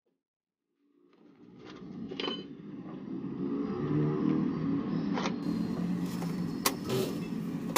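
An engine running with a steady hum, fading in over the first couple of seconds, with several sharp clicks and knocks over it.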